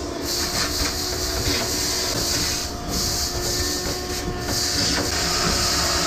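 Shop vacuum running, its hose nozzle sucking leftover alfalfa seed out of the metal seed box of a no-till drill: a steady motor whine under a loud rush of air at the intake, which dips briefly twice as the nozzle moves.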